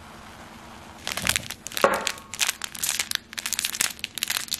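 Small plastic packet of chili flakes crinkling and crackling in the fingers as it is worked open, a dense run of sharp crackles starting about a second in.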